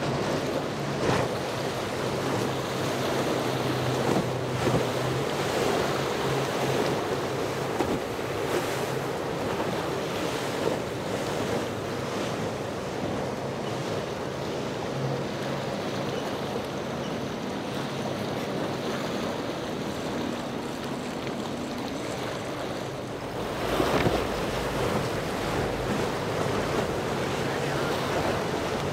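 Surf and wind buffeting the microphone, with boat engines running steadily underneath; a louder gust or wave surges about four-fifths of the way through.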